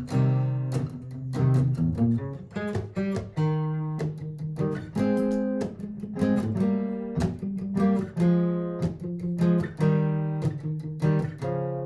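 Martin GPCPA4 acoustic guitar playing through a looper pedal, an improvised line of picked notes over a repeating guitar loop, with sharp note attacks several times a second.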